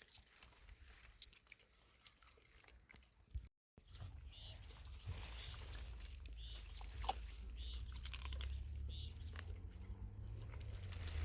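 Faint chewing and crunching of food, with a few short crisp bites about a second apart. A low rumble runs under them after a brief break about three and a half seconds in.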